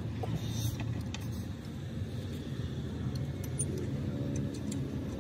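Light metallic clinks of a long L-shaped wheel brace working the rear-wheel nuts of an old tractor: a few scattered clicks over a steady low rumble.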